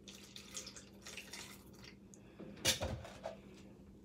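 Milk pouring from a plastic jug into a plastic blender cup packed with ice cream and berries: a faint liquid splashing and trickling, with one brief louder thump near three seconds in.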